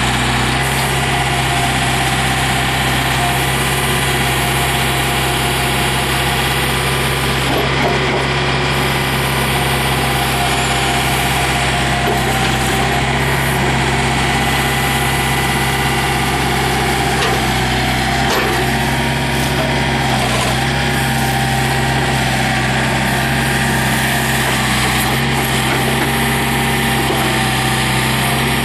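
The Yanmar diesel engine of a 2006 John Deere 110 tractor loader backhoe, running at a steady speed.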